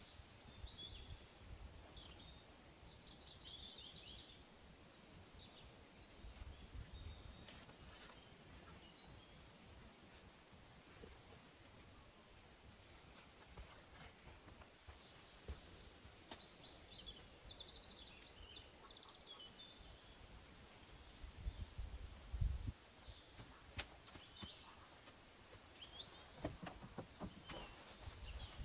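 Faint small-bird chirps and short calls, scattered throughout over a quiet outdoor background, with a few soft low thumps about three-quarters of the way through.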